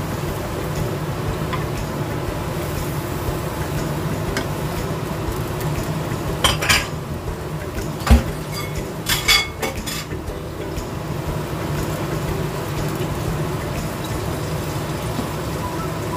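Wooden spatula stirring broccoli and pork in a simmering nonstick wok, over a steady hum. About six to ten seconds in, the spatula knocks and scrapes against the pan a few times, with one sharp knock just after eight seconds.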